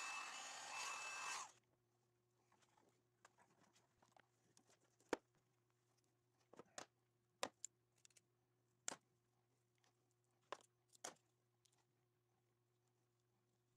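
Handheld electric heat gun running with a fan hiss and a steady whine while shrinking heat-shrink wire connectors, switched off about a second and a half in. Then scattered sharp clicks and ticks as wires are handled.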